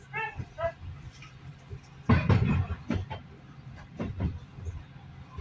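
A small dog yips a few times, then the SA133 railcar's wheels knock and clatter over rail joints and points, with the loudest knock about two seconds in.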